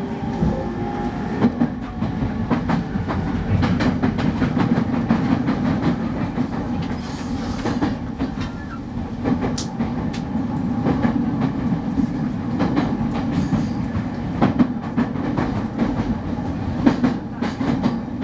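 Running noise inside a JR East 209 series 2100-subseries motor car: a steady rumble of wheels on rail, with knocks and clickety-clack from rail joints. A steady motor whine stops about a second and a half in.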